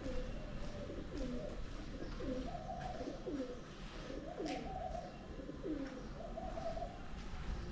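A pigeon cooing: several low coos in a row, each rising and falling in pitch.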